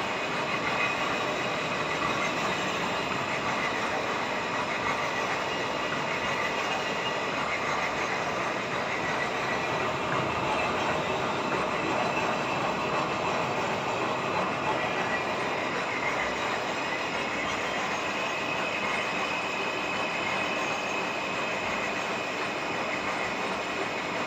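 Metalworking machine tool cutting a steel gear, running steadily with a constant noisy whir and faint high whining tones.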